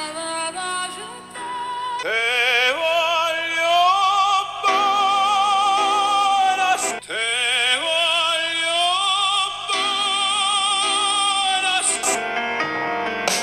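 Operatic singing with wide vibrato played back through a smartphone loudspeaker as a listening test sample. There are two phrases, each sliding steeply up into a long held note.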